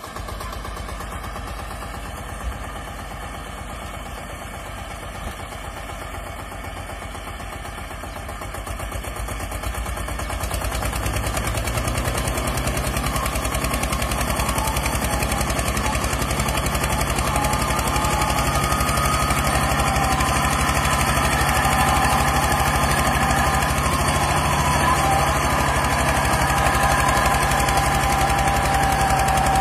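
Eicher 242 tractor's diesel engine chugging and a Mahindra Scorpio SUV's engine running under heavy load as the two pull against each other on a tow rope. About nine seconds in the engine noise grows louder and higher, then holds steady at full strain.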